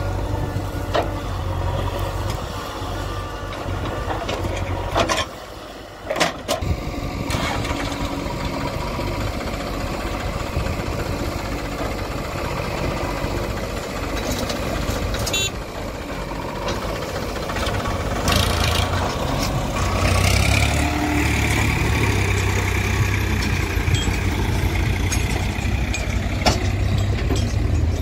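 JCB 3DX backhoe loader's diesel engine working as it digs and loads soil, with a few sharp knocks of the bucket and falling earth. The engine runs louder and harder from about twenty seconds in.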